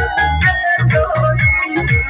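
Loud electronic dance music: a keyboard melody over heavy bass drum beats, about two and a half a second, each beat dropping in pitch.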